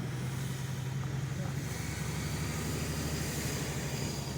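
Road traffic: a motor vehicle's engine running with a steady low hum.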